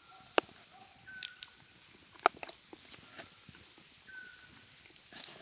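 A bird whistling short, steady single notes every few seconds, with two sharp clicks, one early and one a little after two seconds in, and a few softer taps between.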